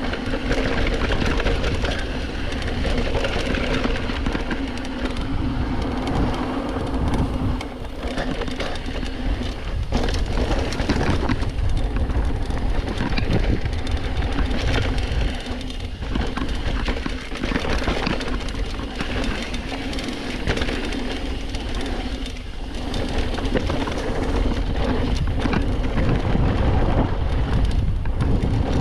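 Mountain bike riding down a dirt trail: steady tire and wind rush with the frame and parts rattling over rough ground, and a steady hum that drops out now and then.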